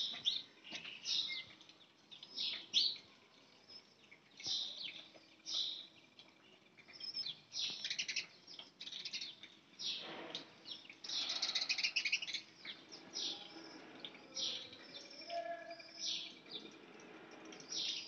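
Swallows twittering: a run of short, high chirps every second or so, coming thick and fast for a moment about eleven seconds in.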